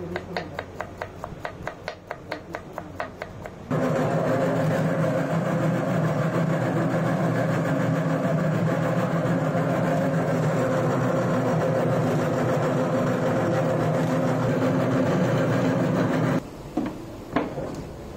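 Rapid knife chops on a wooden board, about five a second. Then an electric vegetable slicing machine starts up and runs steadily for about twelve seconds as onions are fed through its cutter, and cuts off shortly before the end, followed by a few knocks.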